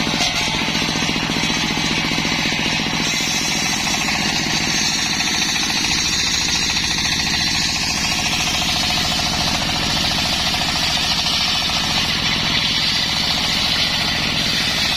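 Circular saw rig cutting waru (sea hibiscus) wood, running steadily. A rapid low pulsing sits under a high hiss from the blade, and the hiss is strongest in the middle.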